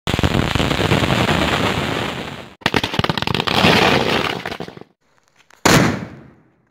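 Fireworks: a flower-pot fountain spraying sparks with a dense crackling hiss, then after a brief break a string of firecrackers going off in a rapid crackle. About five and a half seconds in comes a single sharp burst that dies away.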